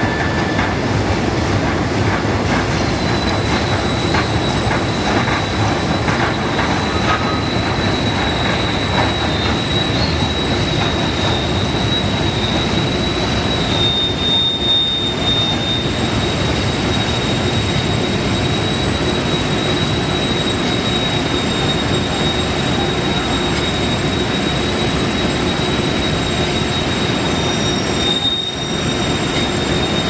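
Continuous loud noise of a steel rolling mill line fed by a billet induction heating furnace: a dense, steady mechanical din with a high whine that comes in about three seconds in and holds steady.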